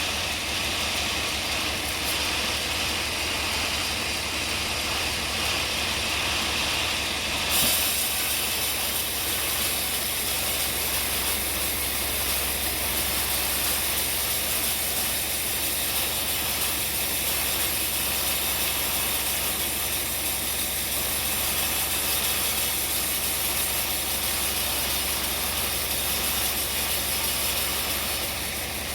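Sawmill running with its saw cutting a hard bongkeng log, a continuous high hissing rasp over a steady engine hum. About seven and a half seconds in, the hiss changes abruptly, then the sawing noise carries on steadily.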